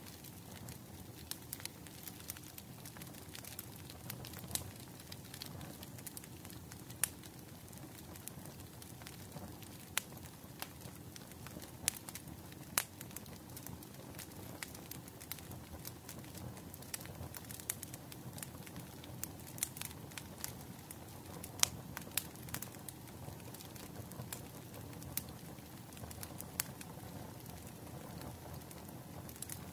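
Firewood burning in a bonfire, crackling: irregular sharp pops and snaps over a soft, steady hiss.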